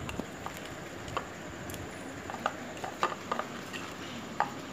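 Faint light clicks and taps, a handful scattered through, over a low steady hiss; no mixer grinder motor is running.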